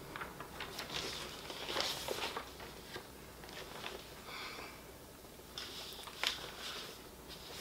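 Sheets of paper and cardstock being handled and shuffled: scattered faint rustles and light taps.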